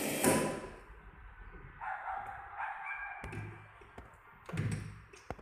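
Brushless electric screwdriver driving screws into a test plate in three short runs, each a brief whir that stops as the screw seats.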